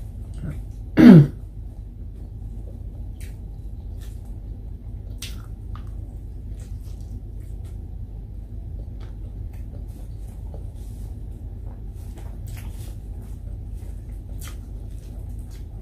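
Close-up mukbang eating sounds: faint scattered mouth smacks and clicks of chewing and hand-eating over a steady low hum. About a second in comes one brief loud sound that drops quickly in pitch.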